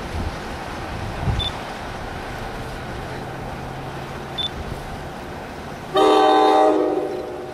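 Approaching train sounding one horn blast of about a second. It starts suddenly near the end and fades out, over a steady rush of wind noise.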